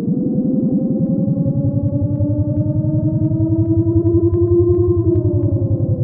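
Electronic synthesizer music: a fast-pulsing low drone under sustained tones that glide slowly upward, then fall away about five seconds in.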